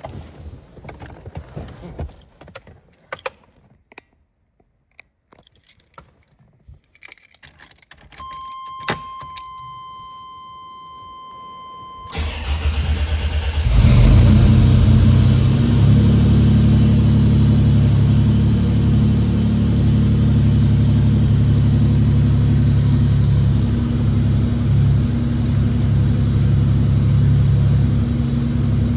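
Scattered clicks and knocks, then a steady chime tone for about four seconds, then the starter cranks the GMC Typhoon's turbocharged 4.3-litre V6, which catches about two seconds later and settles into a steady fast idle. This is a cold start on a newly fitted idle air control valve, holding a raised idle above the roughly 1,000 RPM it should drop to once warm.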